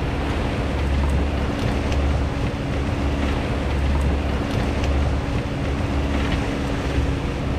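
Boat's outboard motor running steadily at trolling speed, a constant hum over the wash of the wake, with wind buffeting the microphone in a pulsing low rumble.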